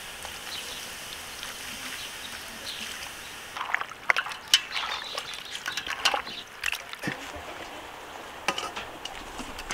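Carbonated water fizzing over cubed beef in an enamel bowl, a soft steady hiss, then from about three and a half seconds in, hands kneading the wet meat cubes with irregular squelches and slaps.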